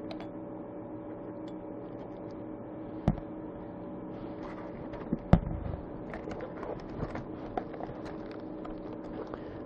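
Plastic-bagged kit parts being handled: crinkling and small clicks, with two sharp knocks about three and five seconds in, the second the louder, over a steady hum.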